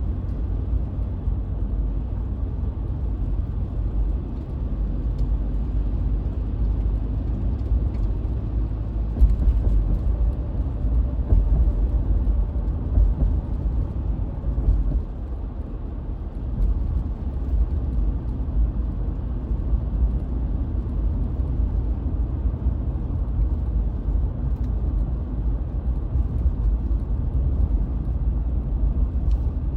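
Steady low rumble of a car driving, tyre and engine noise, easing slightly about halfway through.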